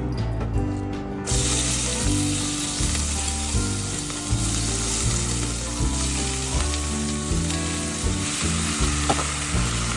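Food sizzling as it fries in a pan, the hiss starting suddenly about a second in, over background music.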